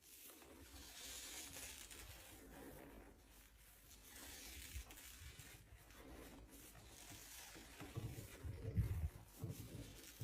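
Nylon hosiery being rubbed and scratched: a soft, scratchy rustle that comes and goes, with a few low thuds near the end.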